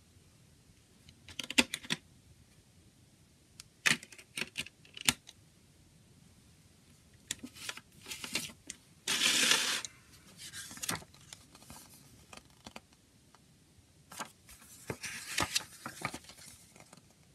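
Hands handling a plastic CD jewel case: scattered light clicks and taps. About halfway through, the paper booklet slides out of the case's front cover with a longer scraping rustle, and near the end it rustles again as it is unfolded.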